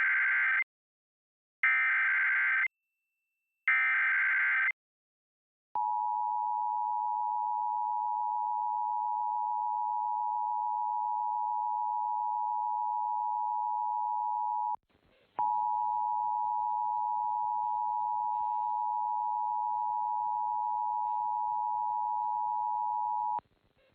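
Emergency Alert System SAME header: three short screeching digital data bursts about two seconds apart, the first already under way. Then the EAS two-tone attention signal sounds steadily for about nine seconds, drops out for a moment, and resumes for about eight more seconds with a faint hiss beneath it.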